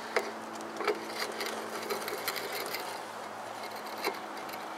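A handful of light metal clicks and taps, spread unevenly over a few seconds, as the steel tine set of an Earthworks 12.5 amp electric tiller is handled and slid back onto its gearbox shaft. A steady low hum runs underneath.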